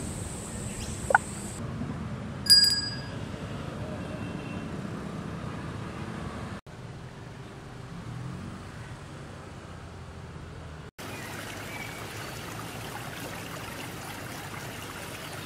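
Steady outdoor background hiss that breaks off briefly twice, with a short high ring about two and a half seconds in.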